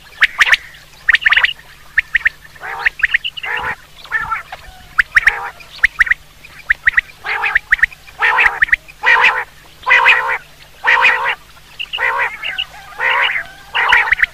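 Common quail calling repeatedly: quick, sharp clipped notes, then from about eight seconds in, harsher rasping calls about once a second.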